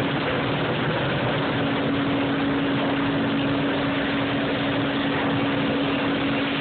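Sawmill machinery running: a steady, unbroken din with a constant hum through it.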